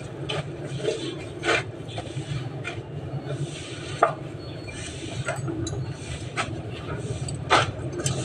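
Sharp clicks and knocks of work on the engine, a few seconds apart, over a steady low hum.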